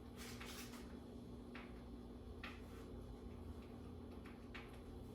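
Small plastic LEGO pieces clicking faintly as spilled pieces are gathered up by hand. There is a little cluster of clicks at the start, then single clicks every second or two.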